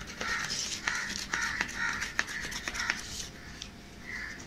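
Black oil crayon rubbed back and forth over corrugated cardboard in quick repeated strokes, about two to three a second, with a few light clicks.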